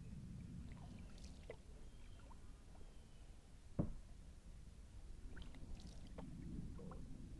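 Kayak paddle strokes in calm water, soft splashes with water dripping off the blade, once near the start and again near the end. A single sharp knock a little past halfway is the loudest sound.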